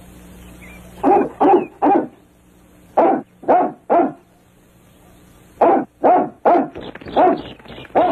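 St. Bernard dog barking deep woofs in sets of three, about two to three a second, with a quicker, more ragged run of barks near the end.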